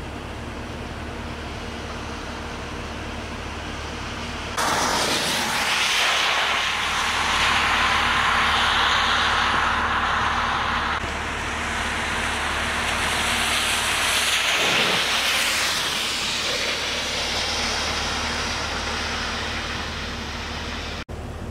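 Rain falling on a wet street: a steady hiss of rain and spatter that starts suddenly about four and a half seconds in, after a low steady hum. A car passes on the wet road about two thirds of the way through, swelling and then falling away.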